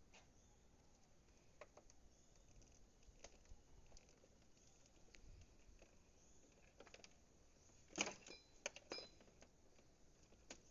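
Faint clicks and small handling noises from hands working plastic wiring connectors inside a scooter's opened front panel, with a quick run of sharper clicks about eight seconds in.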